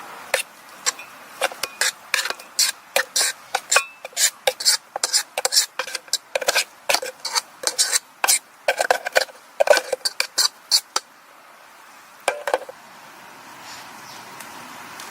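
Clatter of objects being handled: a rapid, irregular run of sharp clinks and knocks for about eleven seconds, then a brief cluster of a few more a second later.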